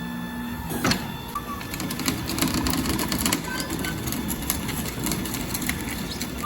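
Tire-dismounting work on a steel wheel: a sharp metal knock about a second in, then a run of clicks and knocks over a rumbling noise.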